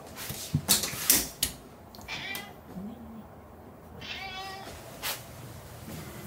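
Domestic cat meowing in greeting: two short meows about two seconds apart. A few sharp knocks come in the first second or so.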